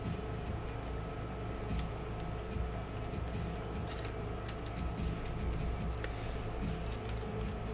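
Glossy chrome trading cards being handled and sorted by hand: scattered light clicks and rustles as cards slide and are set down, over a steady low hum.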